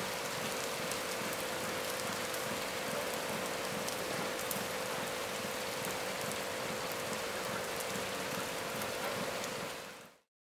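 Steady rain falling, with individual drops ticking now and then over an even hiss and a faint steady hum underneath; it fades out about ten seconds in.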